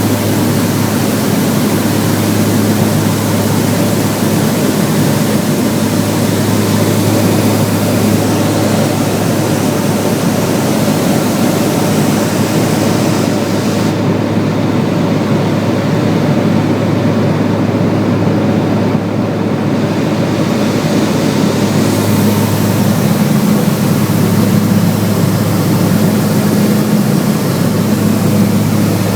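Cessna 402B's twin piston engines and propellers running at a steady drone, with a low hum and a second tone an octave above it under a broad hiss. The hiss eases for several seconds around the middle.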